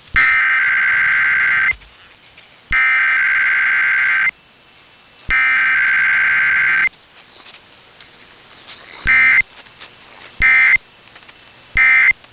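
Emergency Alert System SAME data bursts: three long, harsh two-tone digital screeches about a second apart, carrying the test's header. They are followed by three short chirps spaced about a second and a half apart, typical of the end-of-message code.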